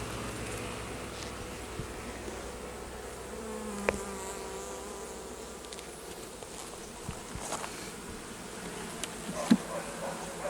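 Honeybees buzzing steadily around an open hive, with a few sharp knocks, one near the middle and a louder one near the end.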